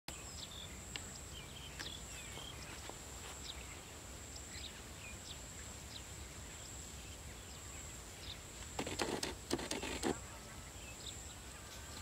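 Open rural field ambience: a steady low rumble and a constant high, thin whine, with faint scattered bird chirps. A brief cluster of louder rustling, scraping noises comes about nine to ten seconds in.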